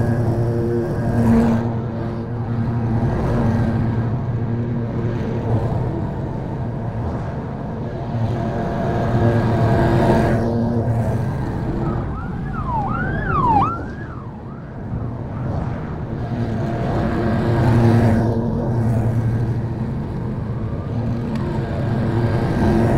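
Commercial stand-on lawn mower's engine running steadily while mowing grass, its level dipping and swelling as the mower moves along. About halfway through come a few quick whistles that slide up and down.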